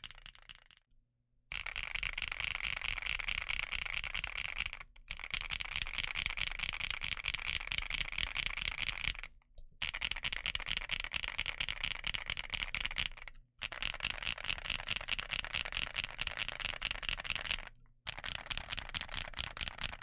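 Fast typing on a GamaKay TK75PRO mechanical keyboard with an aluminum case: dense, rapid keystroke clacking. It starts about a second and a half in and comes in runs of about four seconds, broken by short pauses.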